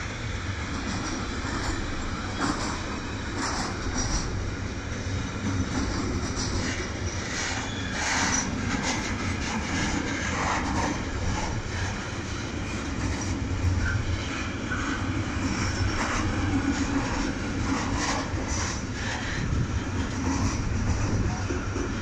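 Container freight train wagons rolling past: a steady rumble of steel wheels on the rails, broken by irregular clacks and knocks.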